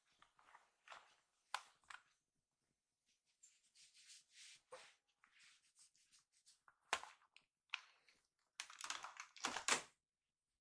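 Two kittens wrestling and pawing on a fleece blanket: soft rustling and scratching of paws and bodies against the fabric, with a few sharp clicks. The loudest, busiest scuffling comes near the end.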